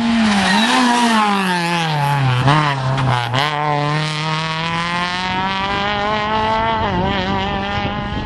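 Rally car engine going through the stage close by: the revs drop over the first three seconds as it slows for a corner, then climb steadily as it accelerates away.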